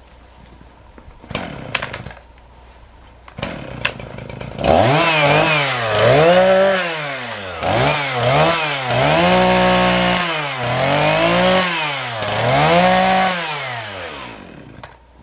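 A gasoline chainsaw cutting fallen red pine branches. For the first few seconds there are only a few light knocks. About five seconds in, the saw comes up to full revs, and its engine note rises and falls in about six surges as it bites into the wood. It dies away just before the end.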